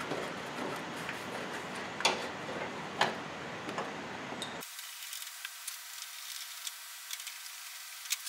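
Hand tools working small bolts on metal: a few sharp clicks and taps in the first four seconds, then faint, quick ticking from a socket ratchet.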